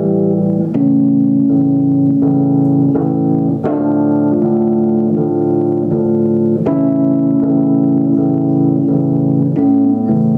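Live rock band playing an instrumental passage: electric guitar, bass and organ-like keyboard holding chords that change about every second, with no singing.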